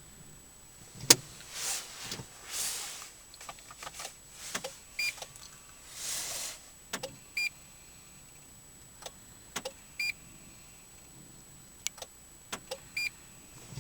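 Scattered clicks, a few short high beeps and several brief half-second whirring bursts from a Renault Megane 2's electrics while it fails to start, with no engine running or cranking.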